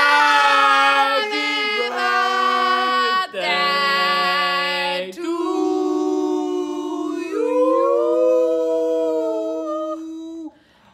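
A few people singing together unaccompanied in long held notes, the pitch stepping to a new note every second or two, then stopping shortly before the end.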